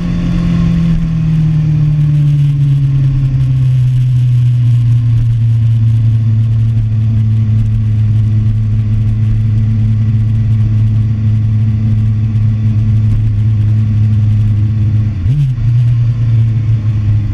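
2013 Kawasaki ZX-6R inline-four sport-bike engine heard from onboard, its revs falling over the first couple of seconds, then a steady low-rpm drone as the bike rolls along slowly. About fifteen seconds in the pitch briefly dips and comes back up.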